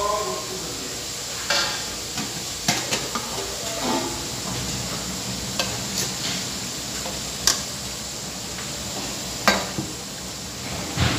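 Chicken pieces simmering and sizzling in their juices in an aluminium wok. A metal spoon stirs them, giving several sharp knocks and scrapes against the pan.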